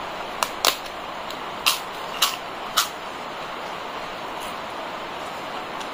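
Crisp papad cracking and crunching: about five sharp snaps in the first three seconds, over a steady background hiss.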